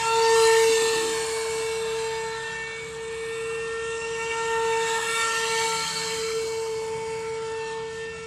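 Small electric motor of a homemade popsicle-stick RC jet boat driving its 16 mm jet thruster: a steady high-pitched whine over a hiss of water spray, loudest about half a second in.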